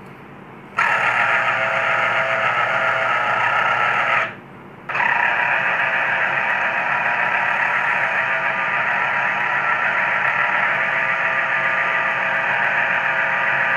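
Geepas electric citrus juicer's motor running with a steady whine as a sweet lime half is pressed onto its reamer cone. It starts about a second in when the fruit is pushed down, cuts out briefly around four seconds in when the pressure is eased, then runs again.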